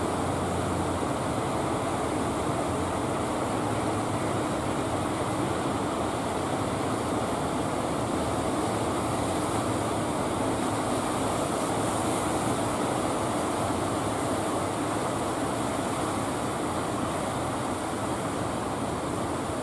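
Ocean surf breaking on the beach, a steady unbroken roar, with a low steady hum underneath.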